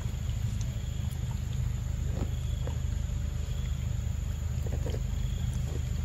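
A macaque chewing and smacking on ripe mango, a few short wet mouth sounds, over a steady low rumble.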